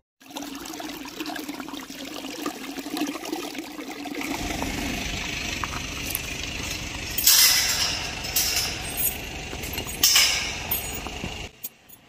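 Metal latch and chain of a steel mesh farm gate clinking and rattling as it is unfastened, with two louder clanks about seven and ten seconds in, over a steady low rumble that comes in about four seconds in.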